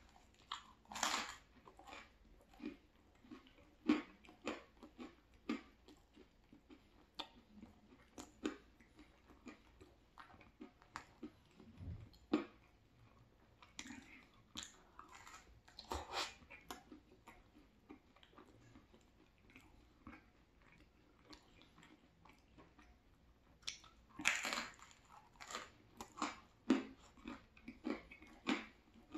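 Close-up chewing and biting of crispy thin-crust deluxe pizza: wet mouth clicks and crackles of crust being chewed, with louder crunching bites about a second in, about halfway through and a few seconds before the end.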